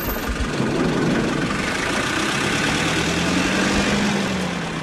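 Small white van driving slowly past at close range, its engine running steadily; a low, steady engine note comes up in the second half as it pulls away.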